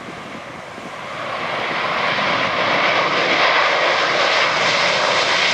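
Boeing 737 jet engines: a rushing jet noise that swells over about two seconds, then holds loud and steady as the airliner passes close.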